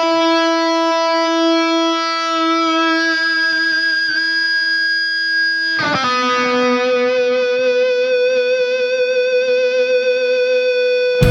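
Electric guitar with a sustained, harmonic-rich tone holding two long notes, each ringing out for several seconds with slight vibrato. The second, lower note comes in about six seconds in.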